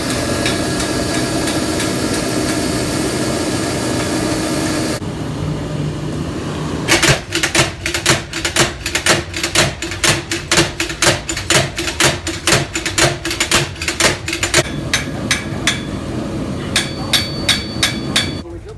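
Hammer blows on steel at an anvil in an even rhythm of about three strikes a second, each ringing, with a short quicker run of blows near the end. A steady noise fills the first few seconds before the hammering starts.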